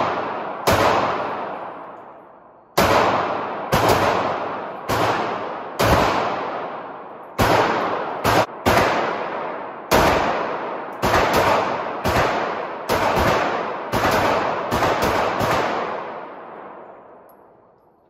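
Around twenty 9 mm pistol shots fired at an irregular pace, some in quick doubles, from a Ruger MAX-9. Each shot has a long echoing tail in the indoor range.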